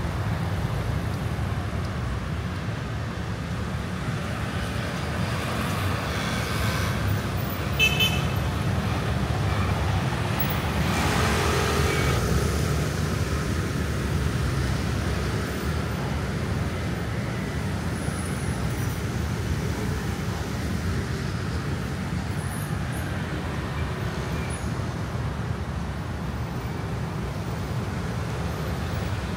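City street traffic: motor scooters and cars passing, a steady low rumble. A louder vehicle goes by about eleven seconds in.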